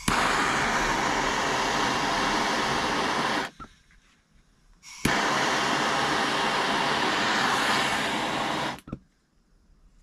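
Hand-held gas torch running with a steady hiss as it heats a copper pipe joint for resoldering. It shuts off about three and a half seconds in, is relit with a sharp click about a second and a half later, and shuts off again near the end.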